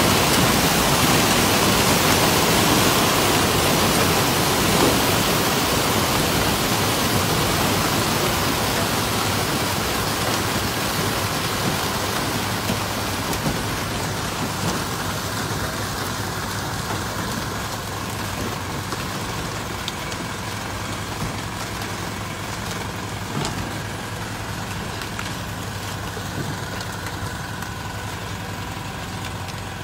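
Mass splashing of hundreds of jumping Asian carp, as they are shocked by an electrofishing boat, makes a dense hiss like heavy rain. The hiss eases off over the second half as the fish are stunned and stop leaping. A steady low engine hum from the boat runs underneath.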